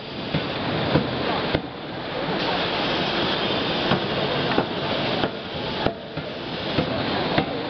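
CNC hydraulic die forging hammers working hot steel: sharp metal knocks at uneven intervals, about seven or eight, over a steady loud machinery hiss.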